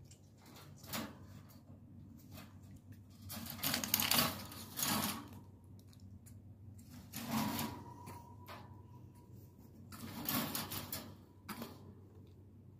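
Wire pet cage rattling and clattering in several bursts as baby monkeys climb on it and scramble around it. The loudest bursts come about four seconds in and again near ten seconds.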